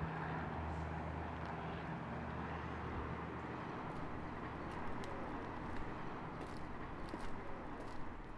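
Distant city traffic: a steady hiss of road noise, with a low hum that fades out over the first few seconds.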